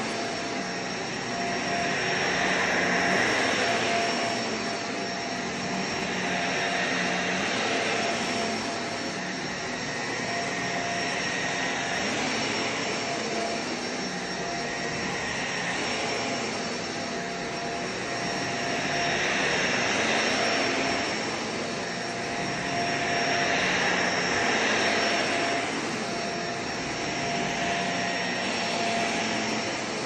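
Shark Navigator upright vacuum cleaner running on carpet, a steady motor whine with a fixed tone, swelling and easing every few seconds as it is pushed back and forth in strokes.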